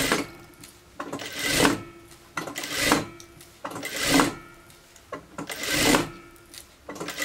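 Industrial sewing machine stitching in about five short runs with brief pauses between, while stretched chiffon is gathered into ruffles.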